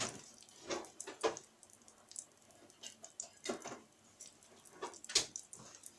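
Butter melting in hot vegetable oil in a frying pan, crackling with faint, irregular pops and spits.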